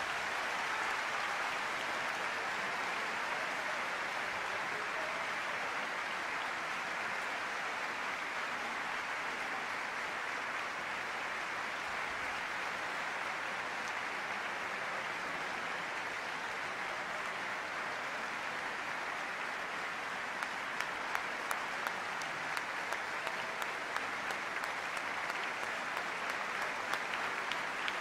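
Large concert-hall audience applauding, a steady even wash of clapping; from about twenty seconds in, sharper single claps start to stand out.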